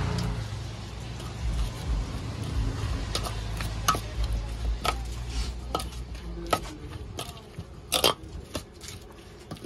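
Salad being tossed in a steel bowl: irregular sharp clinks against the steel from about three seconds in, the loudest about eight seconds in, over a low rumble in the first half.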